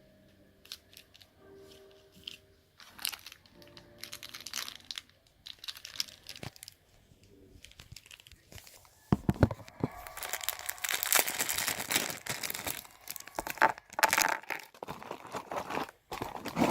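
Packaging being crinkled and torn by hand, with scattered rustles and clicks that grow into a louder, busier stretch of crinkling and tearing about nine seconds in.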